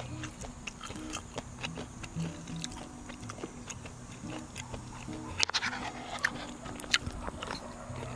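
Soft background music with held notes, over the sounds of a person chewing a mouthful of jjajang rice, with sharp clicks throughout, the loudest about five and a half and seven seconds in.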